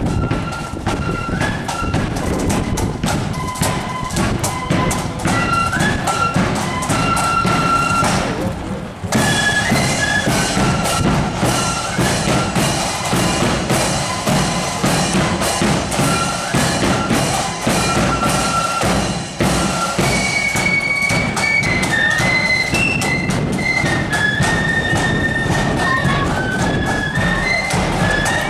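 Marching flute band playing a tune, shrill flutes carrying the melody over a steady beat of snare and bass drums.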